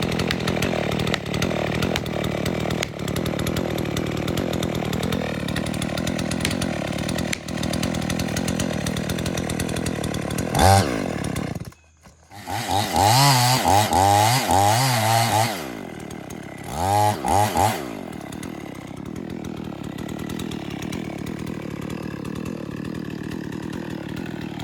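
Two-stroke chainsaw cutting into a poplar trunk for the felling cut, running steadily under load. About halfway through it drops out for a moment, then revs louder with its pitch wavering up and down, gives two short blips, and settles back to a steadier, quieter run.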